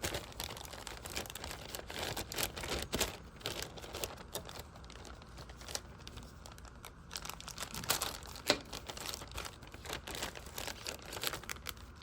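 Plastic bag holding a model kit's chrome-plated parts being torn open and handled, crinkling irregularly with sharp crackles.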